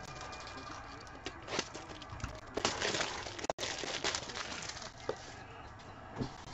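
Rustling and crinkling of trading-card packaging being handled, in irregular scraping strokes that are loudest in the middle, with the sound cutting out for an instant about three and a half seconds in.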